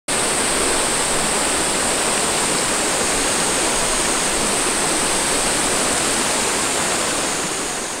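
Mountain stream water rushing steadily, with a steady high hiss riding on top; it starts to fade out near the end.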